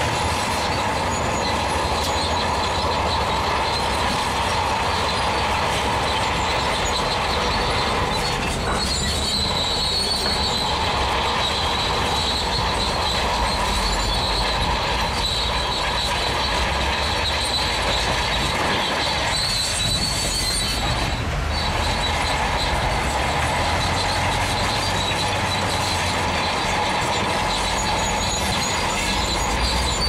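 Crawler bulldozer working, its steel tracks squealing and clanking steadily over the low rumble of the diesel engine.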